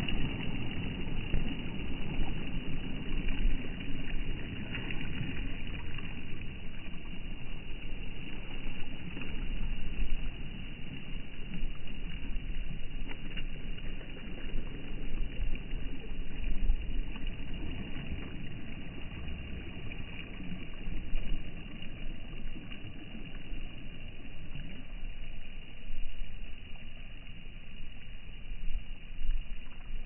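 Small sea waves washing onto a pebble shore, a steady noisy wash with a low rumble that swells and falls irregularly.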